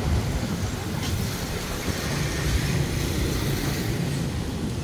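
Steady low rumble of outdoor background noise, with no distinct calls or events standing out.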